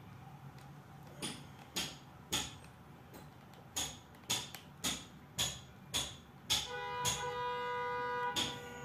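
Background music: sharp percussive hits about twice a second, joined about two-thirds of the way in by sustained pitched notes.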